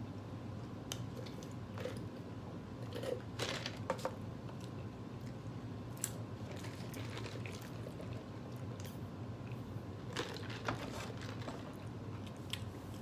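A person chewing a burger and fries: irregular wet smacks and clicks of mouth sounds, busiest a few seconds in and again near the end, over a steady low hum.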